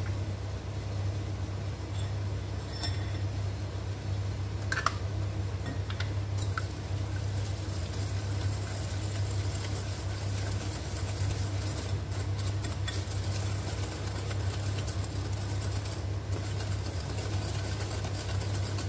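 A steady low hum, over which a wire whisk beating egg into sugar in a glass bowl gives a few light clicks and taps.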